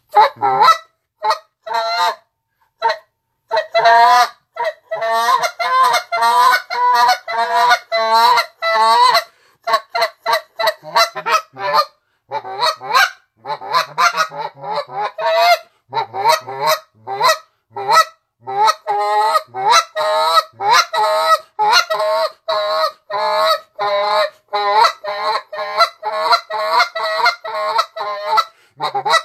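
Reed Canada goose call blown in the train note: rapid strings of short honking notes, about four to five a second, played as several separate runs with brief pauses between them.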